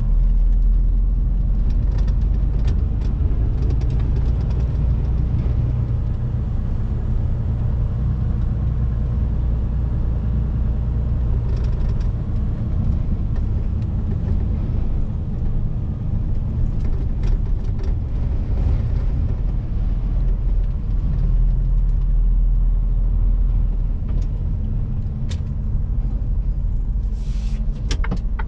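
Mercedes-Benz truck's diesel engine running in the cab, a steady low drone while driving slowly, with a short hiss near the end.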